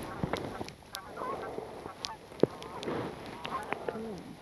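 Waterfowl calling: a busy run of short quacking and honking notes, with one sharp click about two and a half seconds in.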